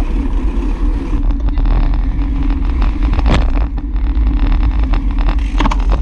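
Wind rumbling over the bike-mounted camera's microphone, with tyre and road noise from a road bike riding along a paved bike lane. There are two short knocks, a little past halfway and near the end.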